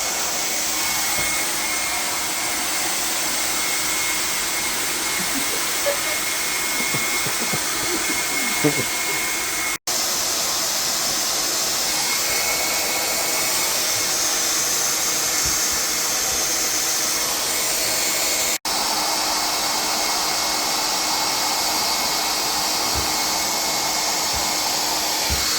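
Handheld hair dryer blowing steadily, cutting out for an instant twice.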